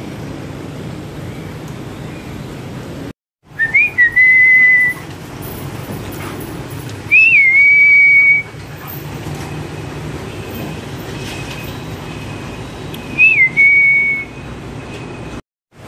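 A person whistling three times, each call a quick flick up and down and then a held steady note; the first and second calls are the longest.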